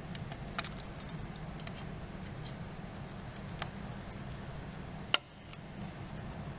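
Light metallic clicks and clinks of hand tools and engine parts being handled, with one sharper click about five seconds in, over a steady low hum.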